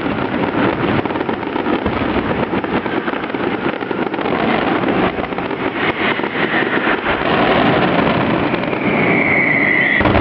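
Fireworks display: a dense, continuous crackling barrage that grows a little louder in the second half, with a whistling tone about nine seconds in.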